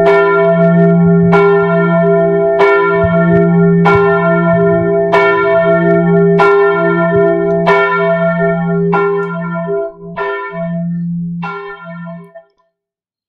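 Church bell tolling about ten times at a slow, even pace, roughly one stroke every 1.3 seconds, each stroke ringing on. The strokes grow weaker near the end, then the sound cuts off suddenly.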